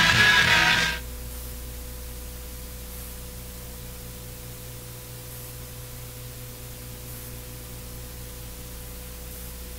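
Rock music cuts off abruptly about a second in, leaving a steady electrical hum and hiss from the sound system.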